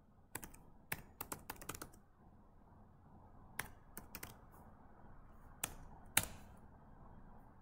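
Typing on a computer keyboard: quick irregular keystrokes in two short bursts, then two single key presses, the last one, about six seconds in, the loudest.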